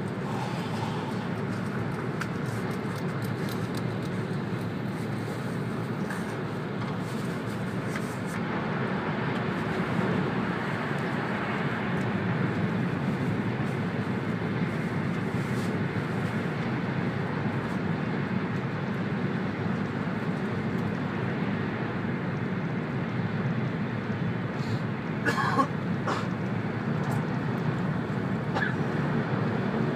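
Cabin noise inside an E2 series Shinkansen running at high speed: a steady rumble and rush from the wheels and the air, a little louder after about ten seconds. A brief sharper sound stands out about 25 seconds in.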